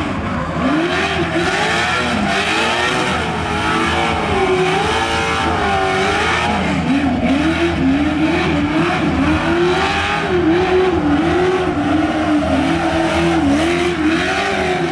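Off-road trophy truck engine revving up and down over and over during a burnout, its pitch rising and falling about once a second, with the rear tyres spinning and squealing against the pavement.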